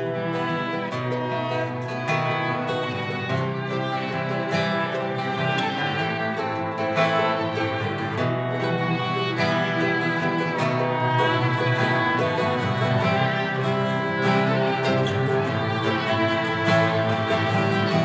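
Instrumental passage on acoustic strings: violin and cello bowing over two strummed acoustic guitars, slowly growing louder.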